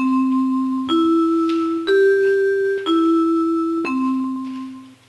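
Electronic voting system chime: five bell-like tones about a second apart, rising in three steps and falling back down again, sounding while the vote is open.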